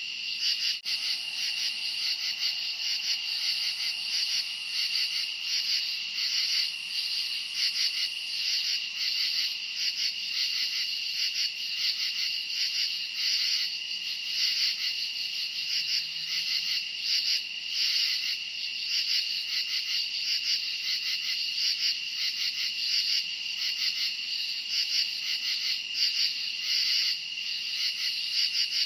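Crickets chirping in a dense, continuous night chorus: one steady high trill with a rapidly pulsing chirr above it, unchanging throughout.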